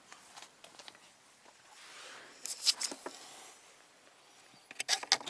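Faint scattered clicks and rustles of handling and movement, with a cluster of sharper clicks about two and a half to three seconds in and more near the end.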